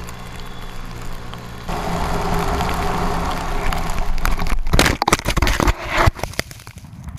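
Quad bike engine running steadily, then louder under throttle about two seconds in. From about four and a half seconds, a run of sharp knocks and crunches as the quad goes down in the snow.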